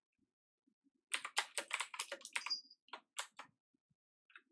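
Typing on a computer keyboard: a quick run of keystrokes starting about a second in, then a few slower single key presses.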